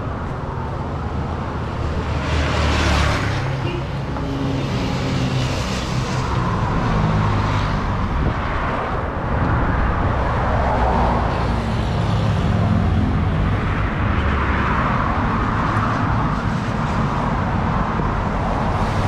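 Road traffic on a busy highway: a continuous run of cars and other vehicles passing, engines running, with the loudest pass about three seconds in.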